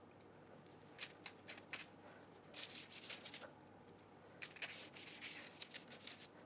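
Faint brushing of a silicone pastry brush spreading water over a scored loaf of raw bread dough on baking paper, in three short runs of quick scratchy strokes.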